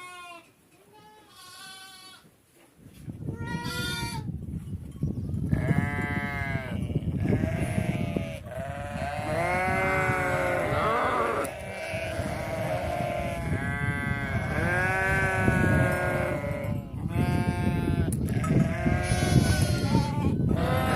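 A herd of sheep and goats bleating: a few wavering calls at first, then many overlapping bleats. A constant low noise comes in underneath about three seconds in.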